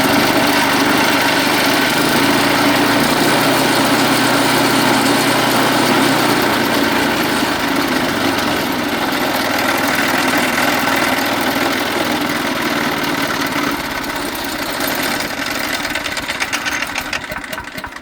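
Small gas engine of a DR wood chipper running steadily with no load. Near the end it slows and winds down, its separate firing strokes showing as it dies away.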